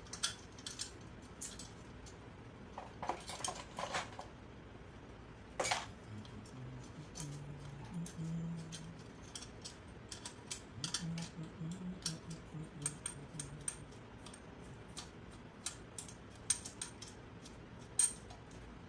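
Scattered metallic clicks and clinks of hand tools, bolts and metal parts as a small gasoline generator engine is taken apart, with a sharper knock about six seconds in and another near the end.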